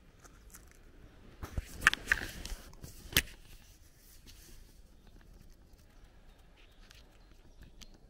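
Brief rustling and rattling, loudest as a single sharp knock about three seconds in, as the walker pushes close past a chain-link fence or gate. Afterwards there is only faint outdoor ambience with a few soft ticks.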